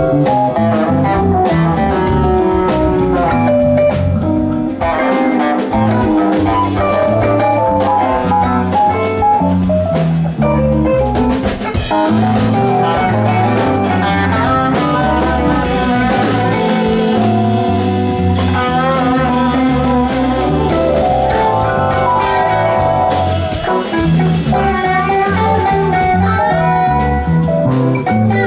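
Live rock band playing an instrumental jam: an electric guitar takes a busy lead line over electric bass, drum kit and keyboards, with a fast run of rapidly repeated notes about two-thirds of the way through.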